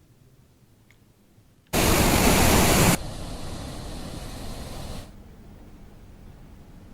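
Flood water of the Godavari rushing past, a steady rush of noise that comes in suddenly about two seconds in and then drops in level twice.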